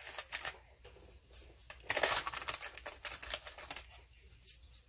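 Fingers crumbling and scattering a dry oat crumble topping in a parchment-lined baking dish: irregular quick clicks and rustles, with a denser burst about two seconds in.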